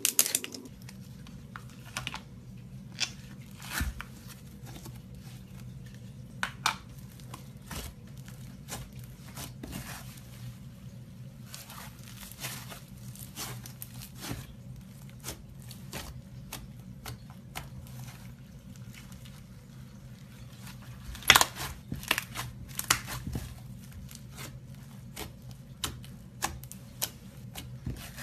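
Blue slushy-textured slime squeezed, stretched and kneaded by hand, giving irregular wet crackles and pops, loudest in a burst about three-quarters of the way through. A steady low hum runs underneath.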